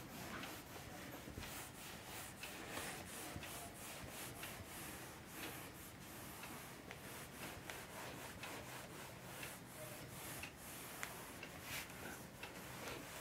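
A cloth wiping a whiteboard clean: faint, repeated rubbing strokes. There is a single short click at the very start.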